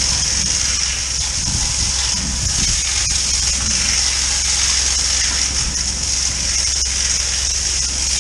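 High-pressure drain-jetting nozzle spraying water up a manhole shaft: a loud, steady hiss of the jet, with a steady low hum underneath.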